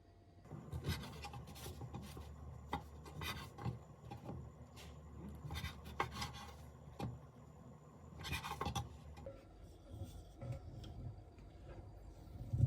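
Rubbing and rustling handling sounds in irregular short bursts, with a few light knocks.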